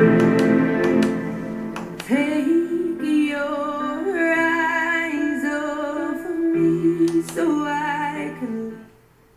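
A song playing: a woman sings long, wavering held notes over instrumental backing. The music stops shortly before the end.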